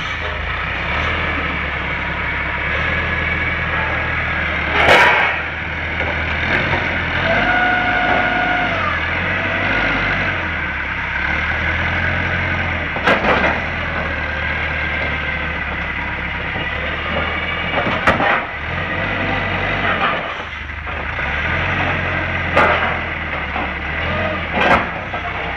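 Forklift engine running at low speed as it tows a train of flat platforms, with a sharp clank or knock from the platforms about every four to five seconds.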